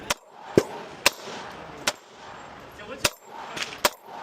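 9mm semi-automatic pistol shots fired at an uneven pace, about seven reports, the loudest about half a second in.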